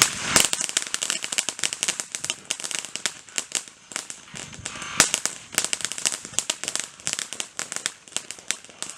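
Consumer firework in its second burst of activity, throwing off rapid, irregular crackling pops, with a louder bang just after the start and another about five seconds in.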